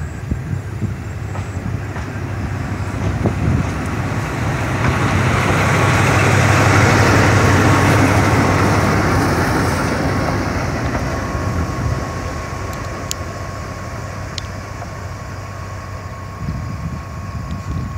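D10H diesel-hydraulic shunting locomotive running as it passes close by, its engine hum loudest about seven seconds in and then fading. A steady high whine comes in from about ten seconds on.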